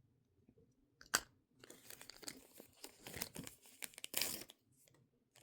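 Small plastic packaging being handled and torn open, crinkling and crackling irregularly, with a sharp click about a second in and a louder crinkle near the end.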